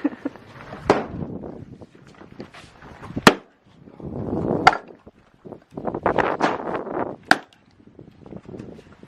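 Oak firewood being split with an axe: three sharp strikes, about a second in, at about three seconds and after seven seconds, with longer rough scraping and rustling noise between them.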